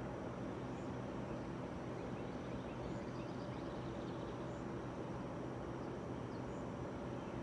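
Steady low hum and hiss of outdoor background noise, with a few faint, short, high bird chirps every second or two.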